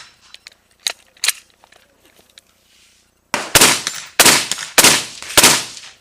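AR-15 rifle in .223/5.56 firing four quick shots about two-thirds of a second apart in the second half, after a couple of faint sharp clicks about a second in.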